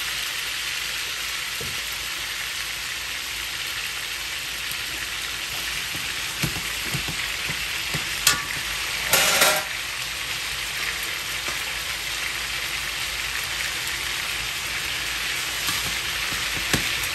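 Marinated chicken leg quarters sizzling steadily in hot oil in a karahi as they sear. A few knocks of metal tongs on the pan, the loudest about nine seconds in.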